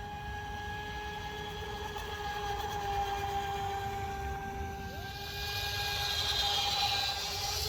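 Brushless electric motor of an RC speedboat whining at a steady pitch, with a hiss building over the last couple of seconds.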